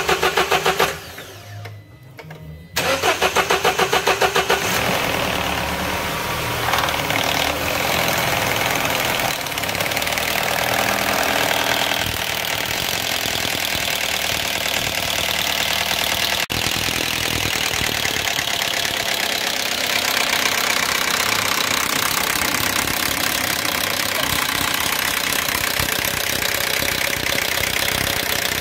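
Citroën C4 1.6 16v VTI petrol engine cranked by the starter, a short pause, cranked again and catching about four seconds in, then running with the rattle of a timing chain that has gone slack because its tensioner has failed.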